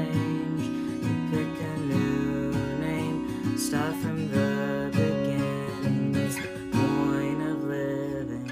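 Acoustic guitar strummed with a capo on the neck, accompanying a person singing.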